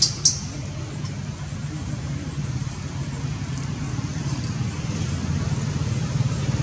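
A motor vehicle's engine running steadily with a low rumble that slowly grows louder. There are two sharp high clicks right at the start.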